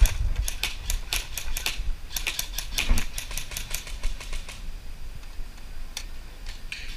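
Airsoft guns firing in quick, irregular shots of sharp clicks, dense for about three seconds and then thinning out to a few single shots, the last about six seconds in.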